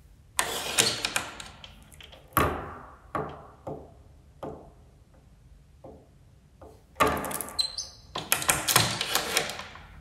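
Door security chain being handled: chain links rattling and clinking with sharp metal clacks. There are two busy bursts, one about half a second in and another about seven seconds in, with single clacks spaced between them.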